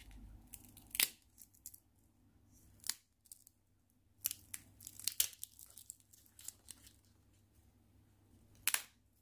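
Thin, freshly fried homemade potato chips being snapped and broken by hand, giving sharp, dry cracks: one about a second in, another near three seconds, a quick run of crackles between about four and five and a half seconds, one more a second later, and a last loud snap near the end. The crisp snapping is the sign of chips fried crunchy rather than soggy.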